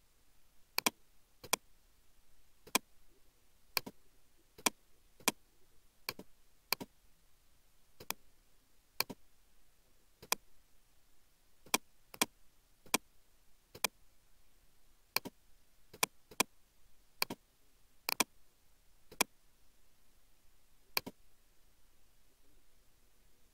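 Computer mouse button clicking: about two dozen sharp single clicks at irregular intervals of a second or so, now and then two in quick succession, stopping near the end.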